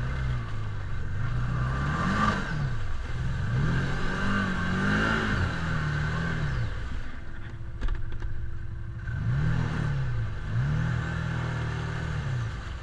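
Side-by-side ATV engine revving up and dropping back in about four surges as the machine churns through deep mud, losing traction and getting stuck.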